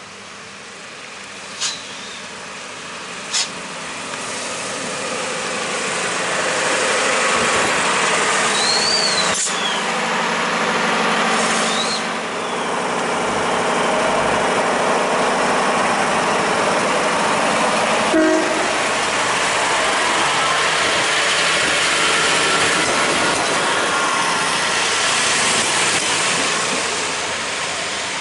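Transwa Australind two-car diesel railcar running close by on the track, its engine and wheel noise building over the first several seconds and then staying loud. There are two sharp clicks near the start and two brief high squeals about a third of the way in.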